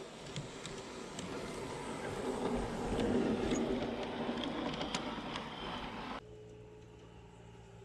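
LGB G-scale garden-railway train, a red Rhaetian Railway electric locomotive hauling freight cars, running past on a curve. Its motor and wheels make a rumble, with the wheels clicking over the rail joints. The rumble is loudest about three seconds in and cuts off abruptly about six seconds in, leaving a quieter steady hum.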